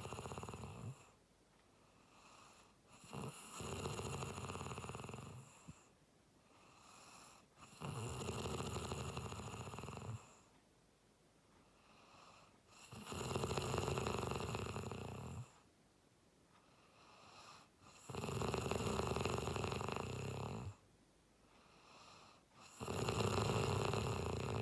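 A person snoring in a steady rhythm: a loud snore of two to three seconds about every five seconds, five times, with quieter breathing in between.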